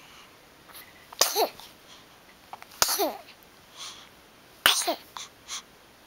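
Six-week-old baby sneezing three times, about a second and a half apart. Each sneeze is a sharp burst that trails off in a short falling squeak.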